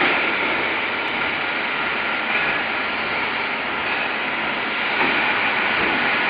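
Horizontal-parting flaskless green sand molding machine running through its moulding cycle: a steady, fairly loud rushing machine noise.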